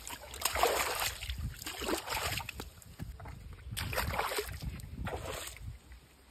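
Splashing and squelching of footsteps through shallow water and wet mud, in several bursts.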